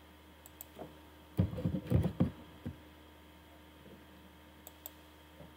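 Computer keyboard keys tapped in a short burst of dull knocks about a second and a half in, with a few light mouse clicks before and after. A faint steady electrical hum runs underneath.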